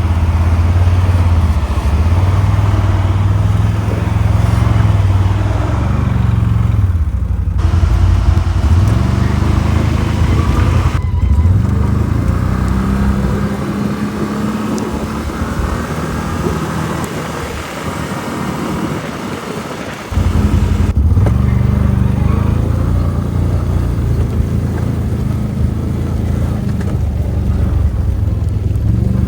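CFMOTO quad bike's engine running while ridden, its pitch rising and falling with the throttle. The sound breaks off and resumes abruptly a few times, and it eases off lower and quieter for several seconds in the middle.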